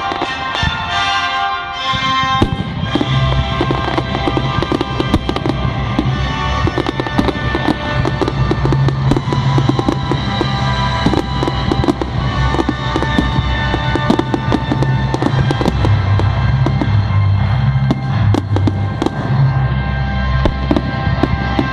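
Fireworks display: rapid crackling and popping bangs, growing dense a couple of seconds in, over loud music with a deep bass line.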